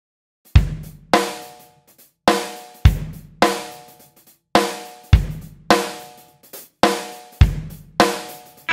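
Solo rock drum kit playing a slow, sparse intro beat: single bass-drum and snare strokes a little over half a second apart, each ringing out before the next, with a short pause after every two or three strokes.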